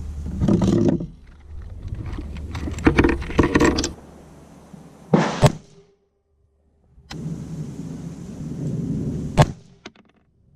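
Clunks, knocks and rustling of gear being handled, with two sharper knocks about five and nine and a half seconds in. The sound cuts to silence for about a second midway.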